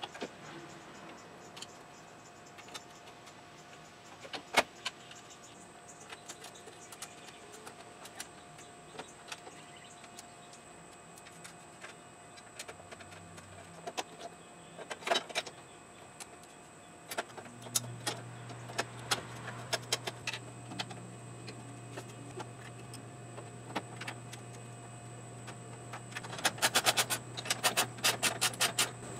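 Hand work on a car's front-end metal parts: scattered clicks and knocks as parts are fitted, then from about 26 s a fast run of clicks from a socket ratchet being worked on a bolt.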